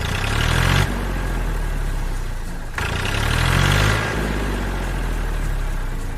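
Tractor engine running and revving up twice, about three seconds apart, as the tractor strains while stuck in rocks.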